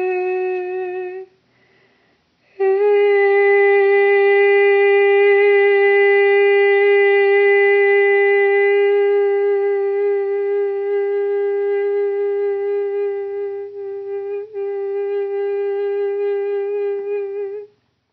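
A woman's voice singing long, wordless held notes (light singing or toning). The first note stops about a second in, and after a short pause a single slightly higher note is held steady for about fifteen seconds before stopping near the end.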